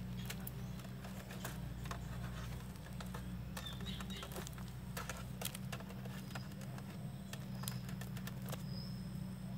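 Scattered light ticks and clicks at irregular intervals from a thin wire rod tapping and scraping against a wire-mesh snake trap, over a steady low rumble.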